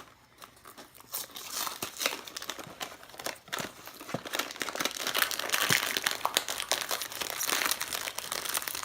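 Plastic cookie wrapper crinkling and tearing as it is opened, growing louder about halfway through.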